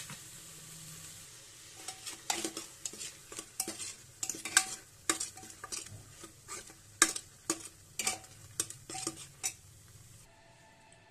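Steel ladle stirring thick carrot halwa in a metal pressure-cooker pot, knocking and scraping against the pot many times in an uneven rhythm. A soft sizzle of the cooking mixture is heard in the first second or so, and the knocking stops about a second and a half before the end.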